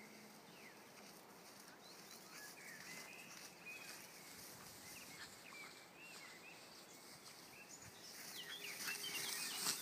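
Faint birdsong: many short chirping calls over a quiet outdoor background, growing busier and louder near the end.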